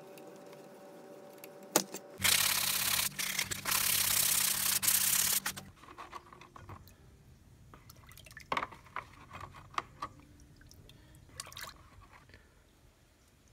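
A power drill runs for about three and a half seconds near the start, boring into a wooden handle. After that, a hand works about in a bucket of dark liquid, with small sloshes and drips.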